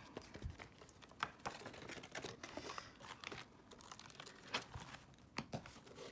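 Faint rustling of paper prop banknotes and envelopes being handled, with scattered small clicks and taps.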